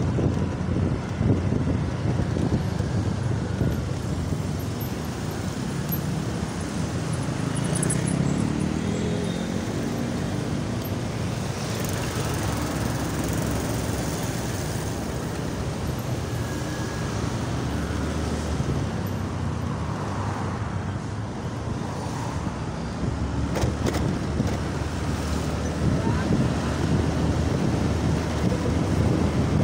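Honda Scoopy scooter ridden through city traffic: its small engine running under a steady rumble of road noise, with other cars and motorbikes around it. About eight seconds in, an engine note rises as a vehicle speeds up.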